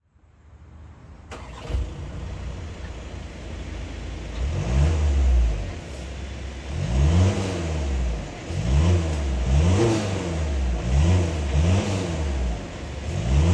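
2024 VW Tiguan R-Line's engine idling and being revved over and over, several short blips that rise and fall in pitch from about four seconds in. It fades up from silence at the start.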